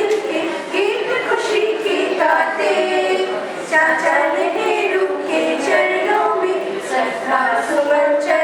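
A group of teachers singing a Hindi Children's Day song together in chorus.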